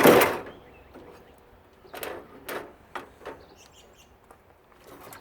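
Wire cutters snipping through the water heater's internal wiring: a loud scraping rustle at the start, then a few sharp snips between about two and three and a half seconds in.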